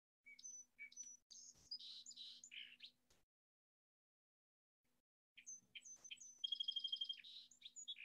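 Song sparrow song played from a recording: two songs about two seconds apart, each opening with a few sharp high notes and running into quicker notes, the second ending in a fast, even trill.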